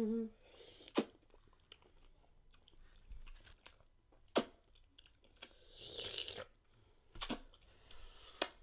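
Close-up mouth sounds of eating a sauce-coated seafood boil and corn on the cob: chewing, lip smacks and finger sucking. Sharp smacks come about a second in, around four and a half seconds, at about seven seconds and near the end, with a wet sucking hiss around six seconds in.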